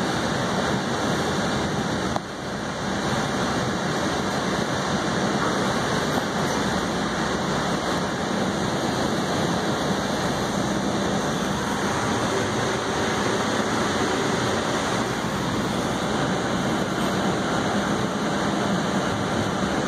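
Steady rushing rumble of a subway train running along the track, heard from inside the passenger car, with a brief drop in level about two seconds in.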